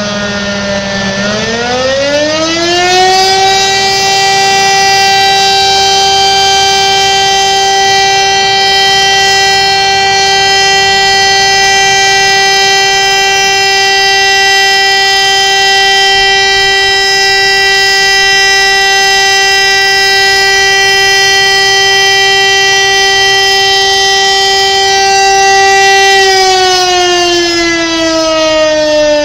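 Electromechanical air-raid-type siren winding up to a steady wail, holding the one tone for more than twenty seconds, then winding down near the end. This is a fire alarm call-out signal for the volunteer fire brigade.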